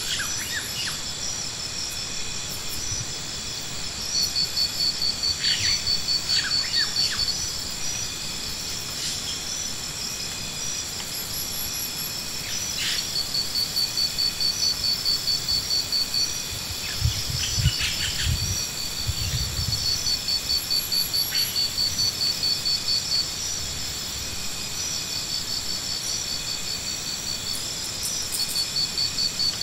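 Insects calling in high, steadily pulsing trains that swell and fade, with a few short bird chirps. A little past halfway there are several low thumps.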